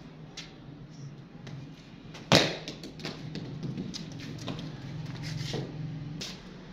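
A cricket ball struck by the bat in a forward defensive stroke: one sharp knock a little over two seconds in, echoing off the bare concrete walls, with a few fainter taps around it.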